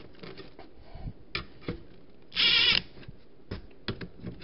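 Makita cordless driver running in one short burst, about half a second long and about two seconds in, snugging down the 17 mm bolts of a hub puller on a BMW E38 front wheel hub. Scattered clicks and knocks of tool and metal parts being handled come before and after it.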